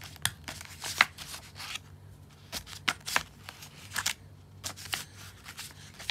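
Irregular light clicks and taps, about three a second, with a faint steady low hum beneath.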